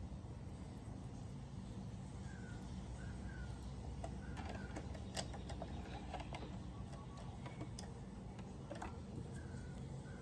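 Faint scattered clicks and taps of sewing-machine parts being handled and fitted, over a steady low hum, with short bird chirps now and then in the background.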